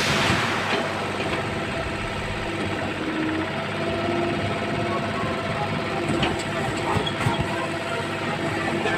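Old Kobelco mini excavator's engine running steadily, with a few faint knocks about six to seven seconds in.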